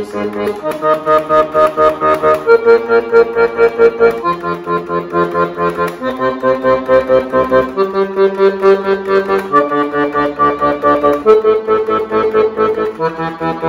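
Weltmeister accordion's left-hand bass buttons playing a repeated-note exercise. Each bass note is struck about eight times in quick, even strokes, alternating the third and second fingers, then the hand moves to the next note along the bass row, about every two seconds.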